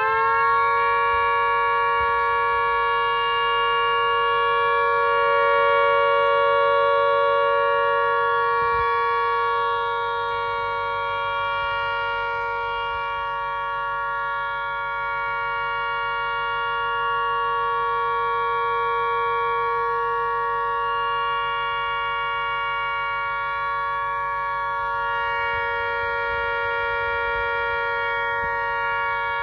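3D-printed model of a Gents 1474 dual-tone tangent air-raid siren, its two rotors held at full speed to sound one long, unbroken two-note chord: the steady all-clear signal.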